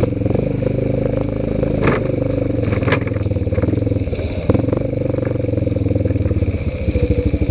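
ATV engine running while riding a rough trail, with a few sharp knocks and scrapes about two, three and four and a half seconds in. Near the end the engine note settles into an even, throbbing pulse.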